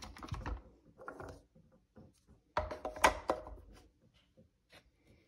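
Bursts of clicking and knocking, as of hard objects being handled and set down, with the largest cluster about two and a half seconds in and scattered single clicks between.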